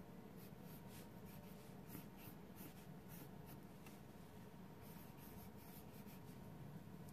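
Pencil sketching on sketchbook paper: faint, short scratching strokes, one after another.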